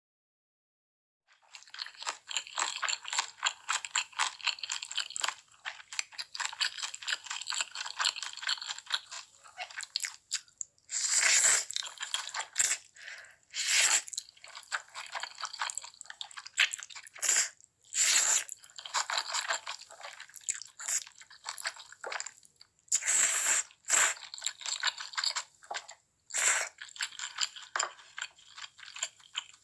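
Close-miked eating of crispy fried chicken: a stretch of dense crackly chewing, then a string of loud crunchy bites, each followed by chewing.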